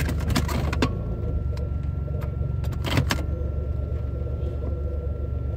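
Jeep Grand Cherokee's 4.0-litre inline-six engine idling steadily, heard from inside the cabin shortly after a fresh start. A few light clicks near the start and a sharper knock about three seconds in sit over the idle.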